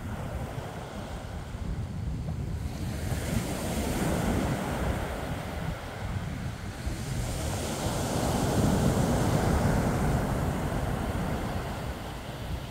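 Sea waves breaking and washing up a pebble beach, surging twice, about three seconds in and again, louder, about seven seconds in. Wind buffets the microphone with a low rumble throughout.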